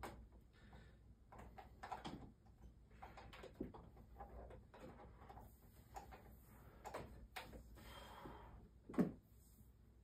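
Faint rustling and light clicks of a Kirby upright vacuum's power cord being handled and unwound by hand, with one short knock about nine seconds in.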